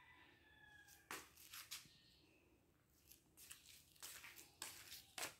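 Faint, scattered scuffs and light clicks of a cat batting and pouncing on a small rope toy across a wooden parquet floor.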